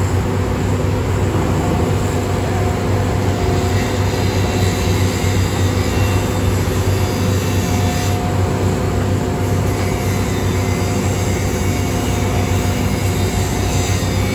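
Heavy diesel construction machinery running steadily, a deep engine drone with steady higher tones over it.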